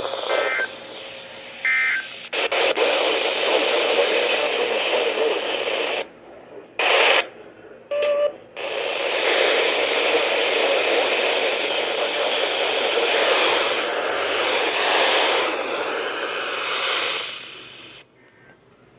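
Radio receiver static: a steady hiss with no voice on it, broken by two short dropouts with brief tone blips about six to eight seconds in. It fades out near the end.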